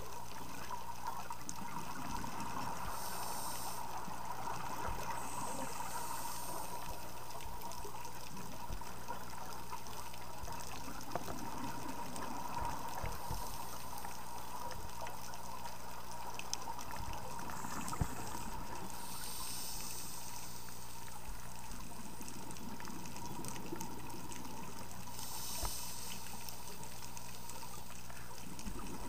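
Underwater sound through a camera housing: a steady hiss with a thin steady tone. Scuba regulator exhaust bubbles gush out every several seconds as the diver breathes out.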